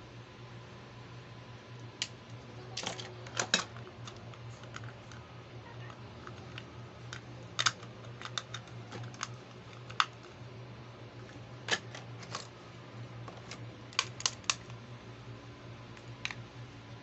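Small hard-plastic toy accessories clicking and tapping against each other and a clear plastic box as they are handled and set down: irregular sharp clicks, some in quick clusters of two or three, over a faint steady low hum.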